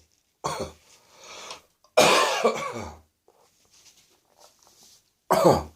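Dry coughing from a man with a lingering post-bronchitis morning cough. There are four bouts: a short cough, a fainter one, a long loud run of coughing about two seconds in, and a short one near the end.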